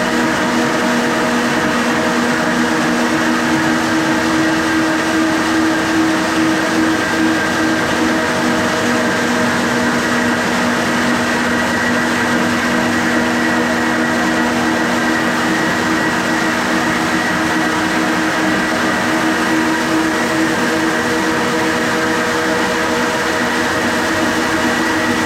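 Hyper Grinder floor sander running steadily on 80-grit paper across a pine floor: an even motor hum with several fixed tones over a grinding hiss, unchanging throughout.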